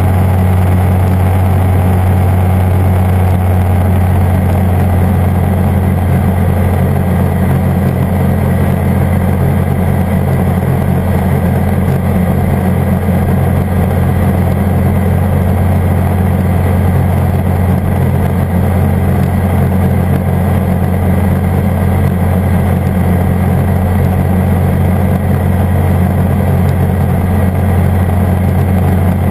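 Airbike ultralight's engine and propeller running steadily in cruise flight: a constant deep hum with its overtones, holding one pitch without any change in power.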